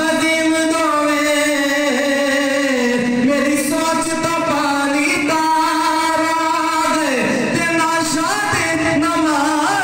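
A man singing a Punjabi naat into a microphone, solo voice in long held notes that slide and turn between pitches.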